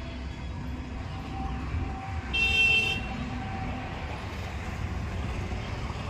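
Steady low rumble of road traffic and engines, with a vehicle horn honking once for under a second about two and a half seconds in. The horn is the loudest sound.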